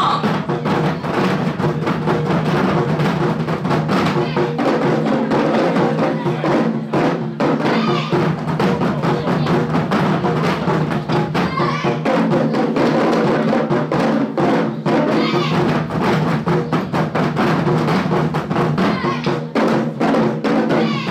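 Elementary-school taiko drum ensemble playing a piece, with dense, rapid drum strokes in a steady rhythm.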